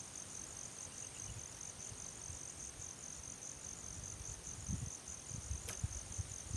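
An insect trilling steadily, a fast, even, high-pitched pulsing chirr. A few soft low bumps and a single click come near the end.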